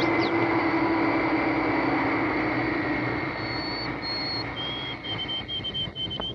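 Jet airliner engines running: a steady rush with a high whine, gradually getting quieter. Short high whistling tones come and go in the last couple of seconds.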